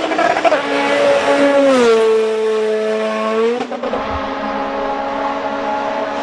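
Racing-car engine sound, a steady high engine note that drops in pitch about two seconds in and climbs back a little just before four seconds.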